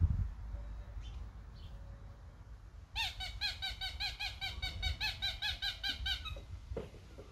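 Squeaky dog toy squeezed rapidly: a quick, even run of high squeaks, about six a second, starting about three seconds in and lasting about three seconds.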